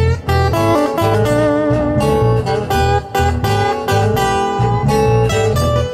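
Live acoustic blues band playing an instrumental break: a lead acoustic guitar picks a quick run of single notes over a strummed acoustic guitar and electric bass.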